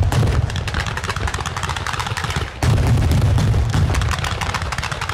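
Ground-level fireworks battery (batteria alla bolognese) firing a rapid, continuous string of bangs and crackles over a deep rumble, with a louder salvo starting about two and a half seconds in.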